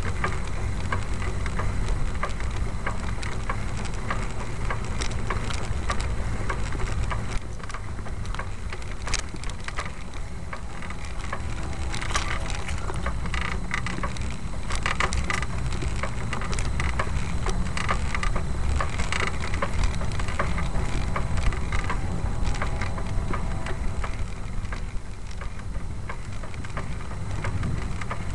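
Vehicle driving along a dirt trail: a steady low rumble under dense, irregular crackling and clatter, busiest around the middle.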